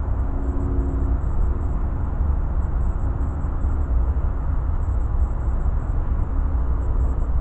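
Wind rumbling on the microphone. Under it, a distant train horn sounds a chord four times, long, long, short, long: the grade-crossing signal of an approaching train.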